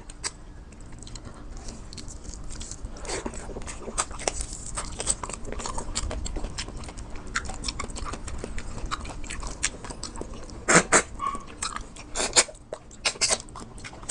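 A person chewing and biting bulalo (beef shank and bone-marrow soup) close to the microphone, with many small wet clicks. A few louder sharp clicks come near the end.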